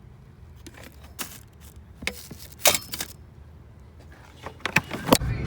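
Several sharp clicks and clatters of small hard objects over a low rumble, the loudest around the middle and near the end. Strummed guitar music begins just before the end.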